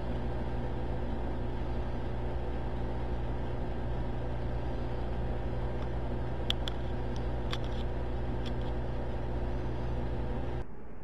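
Steady low mechanical hum with a few faint sharp clicks in the middle; the hum stops abruptly near the end.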